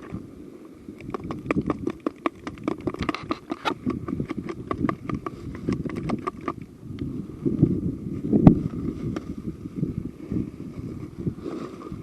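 Wind buffeting the microphone as a steady low rumble, with rapid crackling clicks for several seconds and a single loud thump about eight and a half seconds in.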